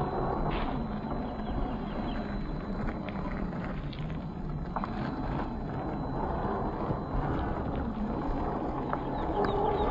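1/10-scale RC rock crawler with a 540 brushed motor, crawling over rock and gravel: a steady low drivetrain hum with scattered clicks and crunches of tyres and stones on rock.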